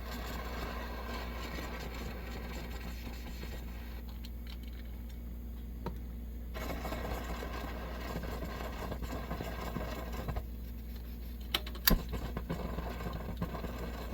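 Coleman 523 two-burner gasoline stove burner running with a rushing noise that swells about six seconds in and eases about ten seconds in, with a couple of sharp knocks near the end. The owner suspects the burner's generator needs work, since it is clearly getting fuel.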